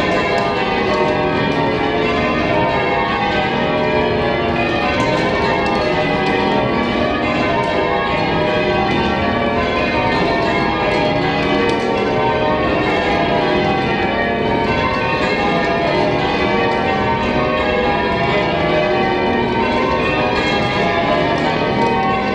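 Gloucester Cathedral's ring of twelve tower bells being change-rung, the strokes following one another in a rapid, unbroken stream of overlapping tones.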